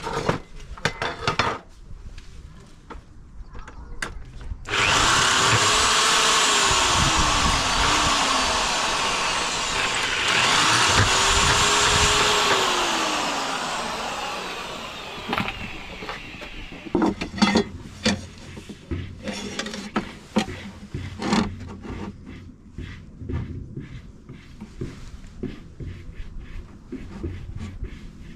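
Power drill drilling twice, its motor speeding up and then slowing each time with a harsh grinding noise, likely pilot holes into a thin sheet-metal plate. Scattered knocks and taps follow after the drilling stops.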